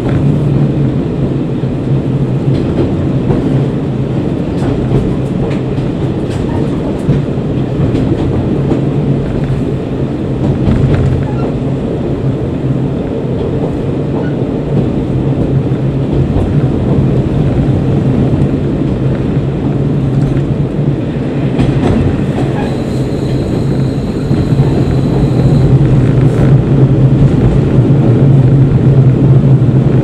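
Interior running noise of a KiHa 40 diesel railcar: a steady diesel engine drone with wheel-on-rail rumble and clatter. About three-quarters of the way in, a steady high squeal lasts a few seconds, and the noise grows louder near the end as the train reaches a platform.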